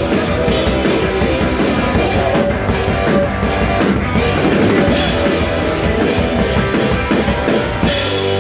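Live rock band playing a fast song loud, with drum kit and guitars. Just before the end the drums stop and a held chord rings on.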